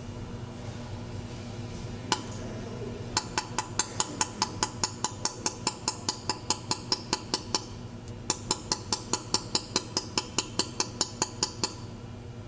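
Pulsed jewelry laser welder firing spot welds, each pulse a sharp snap: one lone shot, then two runs of evenly spaced snaps about five a second with a short pause between, as a row of welds is laid along the seam. A steady low machine hum runs underneath.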